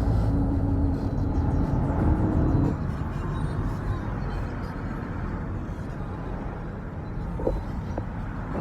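Car engine and road noise heard from inside a moving taxi: a steady low rumble, with a steady hum over it that stops about three seconds in.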